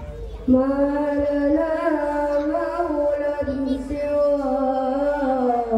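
A boy singing sholawat solo into a microphone, long ornamented held notes. The voice comes in about half a second in, breaks briefly in the middle, and ends on a falling phrase.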